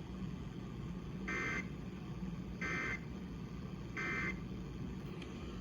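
Weather radio sounding the Emergency Alert System end-of-message data tones: three short buzzing bursts of the digital code, evenly spaced about a second apart, over a steady low hum and hiss. They mark the end of the alert broadcast.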